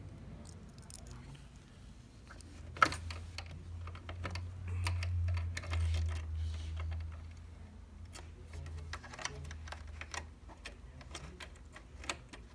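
Small metal parts clicking and tapping as a wire finger guard and its presser-foot screw are handled and fitted onto a home sewing machine's presser bar, with one sharp click about three seconds in. A low hum runs under the middle of it.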